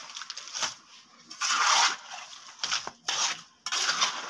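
Mason's steel trowel scraping and spreading wet concrete mix: several short scraping strokes with small knocks between them.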